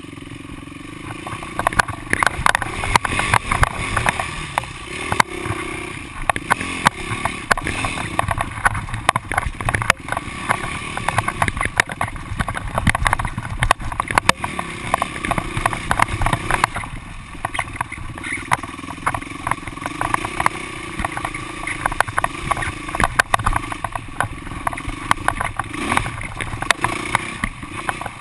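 Yamaha YZ450F four-stroke single-cylinder engine heard from on the bike, its revs rising and falling as it rides along a rocky, muddy creek bed, with frequent knocks and rattles from the bike over rocks.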